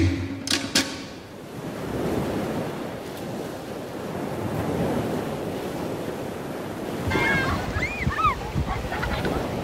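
Sea surf washing on a reef beach, with wind buffeting the microphone, after the last strikes of the ʻōteʻa drumming end within the first second. A few short high cries rise and fall near the end.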